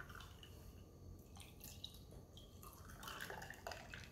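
Faint pouring and trickling of blueberry lemonade from a glass pitcher over ice into a stemmed glass.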